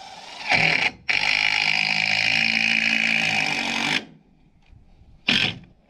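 Cordless driver screwing a wooden batten to a block wall. A short burst about half a second in, a brief stop, then about three seconds of steady running as the screw goes in, and another short burst near the end.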